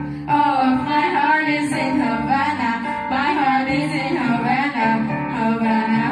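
Girls singing a pop song into handheld microphones over backing music.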